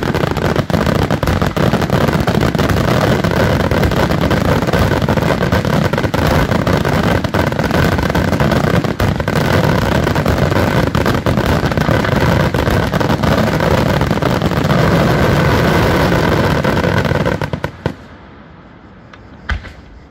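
Daytime fireworks: a dense, continuous barrage of rapid bangs and crackling. It stops abruptly near the end, leaving a couple of single bangs.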